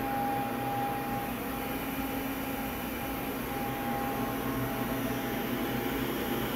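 Steady hum of machine-shop machinery, with a faint high whine that comes and goes.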